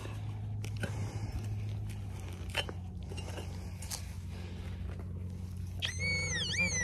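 Crunching and scraping of soil as a trowel and pinpointer probe a dig hole, with scattered clicks over a steady low hum. About six seconds in, a metal detector gives a loud warbling alert tone, signalling a metal target, a buckle fragment, in the loose soil.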